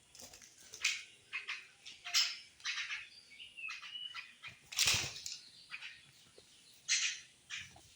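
Pet common mynas making a run of short, harsh, scratchy calls with a few brief whistled notes between them, the loudest call about five seconds in.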